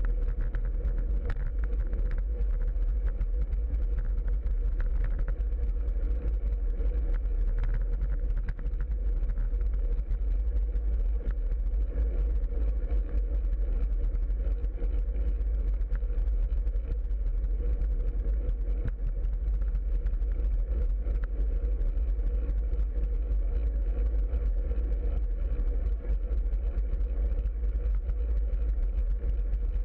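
Steady low rumble of wind and road vibration on a camera riding along on a moving bicycle over asphalt, with a faint steady hum underneath.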